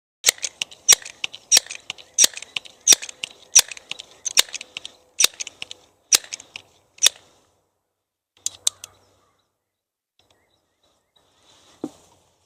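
Multi-pump pneumatic pellet pistol being pumped up: about ten loud clacking strokes of the pump lever, slowing slightly toward the end, which the shooter calls brutally loud. A few quick clicks follow, then one short soft pop near the end as it fires.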